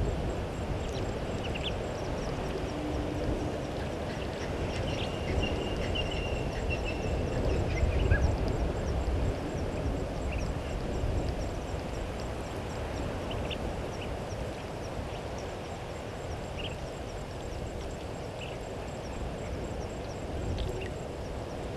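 Outdoor ambience: a low wind rumble on the microphone that swells in a gust about 8 seconds in, with scattered short bird chirps and one longer warbling call, over a faint, steady, pulsing high insect buzz.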